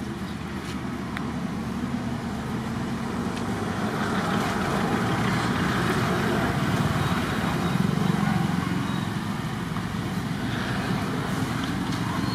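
Steady low rumble of passing motor traffic, growing louder toward the middle and easing a little later.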